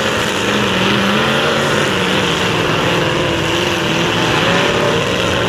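Demolition derby trucks' engines revving as they manoeuvre in the ring, several pitches wavering up and down over a steady loud din.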